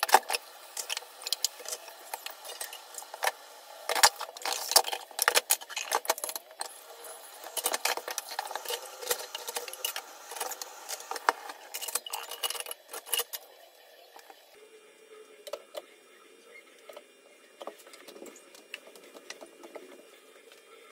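Dishes and cutlery being washed and set in a metal dish-drainer rack: many sharp clinks and knocks of crockery and utensils against each other and the rack. About fourteen seconds in the clatter thins to occasional faint clinks.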